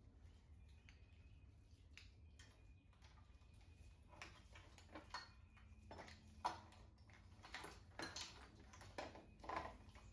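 Faint scattered clicks and rustles of small parts and wiring being handled. The first few seconds are near silent, then the clicks come irregularly, the sharpest about six and a half seconds in.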